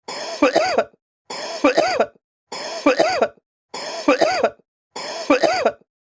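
A person's short cough, repeated as an identical loop about every second and a quarter, five times. Each cough starts softer and ends with a louder voiced burst.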